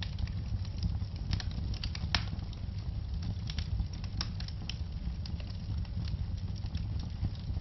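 Wood fire burning with a steady low rumble and irregular sharp crackles and pops, a few each second.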